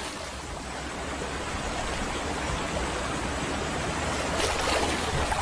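River water churning and splashing as a crocodile holds a wildebeest in deep water to drown it. The splashing is steady and grows a little louder near the end.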